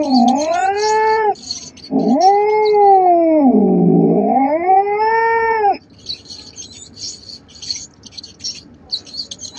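Domestic cat yowling in two long, drawn-out calls that rise and fall in pitch. The first ends about a second in and the second lasts over three seconds. A faint high chirping follows in the pause.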